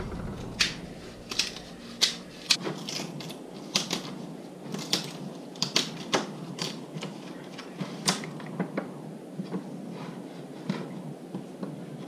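Thin wooden strips and offcuts being handled on a workbench: irregular light clicks and knocks as the pieces tap against each other and the bench, several a second.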